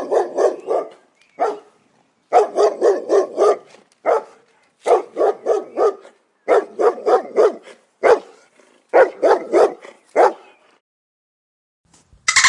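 A dog barking in quick runs of about four to seven barks, with short pauses between the runs.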